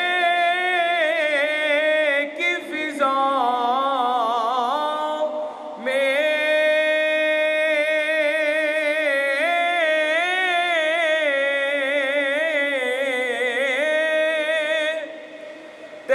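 A man singing a naat unaccompanied, in long held notes with wavering ornaments. There is a short break about five and a half seconds in, and the voice falls away near the end.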